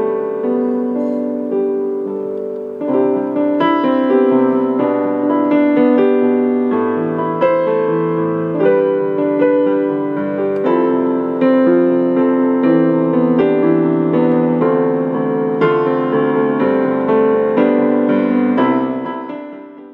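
Background music: a gentle piano tune of single struck notes that ring and die away, fading out at the very end.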